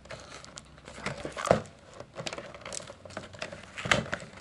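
Clear plastic blister and cardboard backing card of a toy package crinkling and crackling as they are worked apart by hand, with irregular clicks and a sharper crackle about a second and a half in and again near the end.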